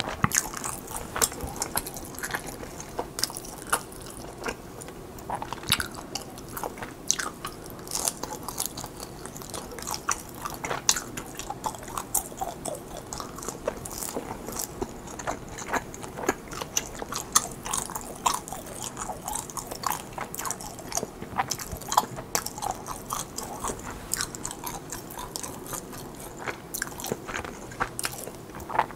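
Close-miked chewing of chewy mozzarella cheese-filled rice cakes: a continuous run of small mouth clicks and smacks.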